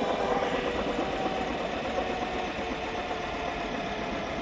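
Mosquito Air ultralight helicopter's engine and main rotor running steadily, the engine note sagging slightly lower and quieter as it goes.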